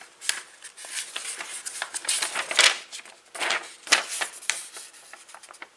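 A sheet of paper rustling and crackling as it is unfolded and handled, in short irregular bursts of crinkling, the loudest about two and a half and four seconds in.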